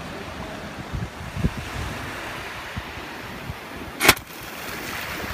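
Sand Blaster compressed-air bait cannon firing: one sharp, loud blast of released air about four seconds in, launching the frozen bait. Surf wash and wind on the microphone run underneath.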